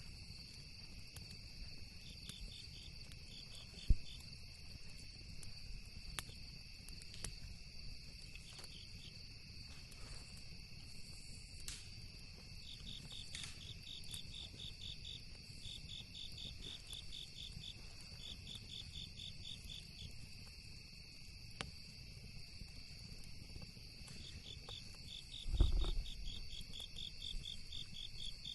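Crickets chirping steadily in rapid pulsed trains, with scattered sharp pops from a crackling campfire and a low rumble underneath. Near the end a louder low thud stands out, with a single sharp click about four seconds in.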